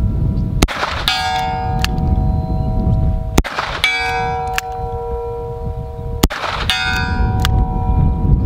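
Three shots from a Taurus Raging Hunter .44 Magnum revolver, about three seconds apart. Each is followed about half a second later by the ringing of a hit steel target at a distance.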